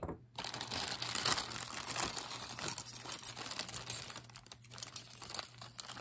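Crinkling and rustling of a clear plastic zip-top bag being handled as metal bangle bracelets are drawn out of it, with one sharp click about two and a half seconds in.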